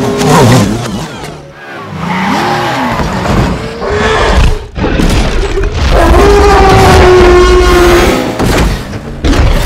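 Action-film sound mix of a car race: engines and tyres, heavy crashes and booms, layered with a film score. The mix is loudest about six to eight seconds in.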